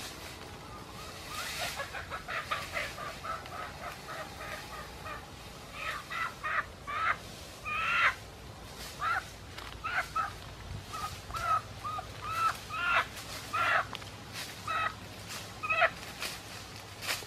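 Chicken squawking in a long run of short, repeated calls, getting louder and more frequent from about six seconds in: the distress calls of a chicken that is being caught and carried.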